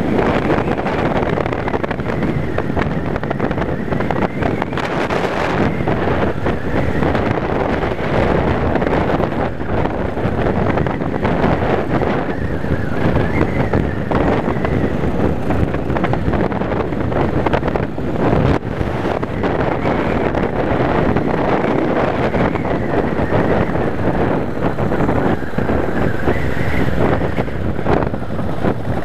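Yamaha Wildstar V-twin cruiser motorcycle riding at road speed, heard as a steady rush of wind buffeting the handlebar-mounted microphone with the engine running beneath it.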